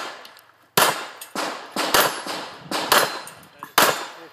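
A string of pistol shots fired in quick succession during an IPSC course of fire, several of them less than a second apart. Each shot is followed by a short echo.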